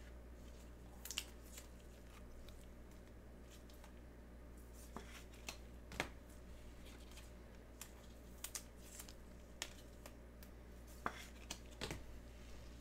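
Faint, scattered clicks and rustles of trading cards being handled and sorted, a dozen or so light irregular ticks over a steady low hum.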